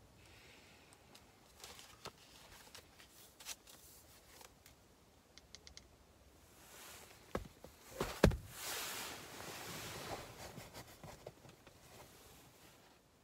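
Small clicks and taps from a person lying in bed who puts things away and switches off the light, then a sharp knock about eight seconds in, followed by a couple of seconds of rustling bedding as he settles down.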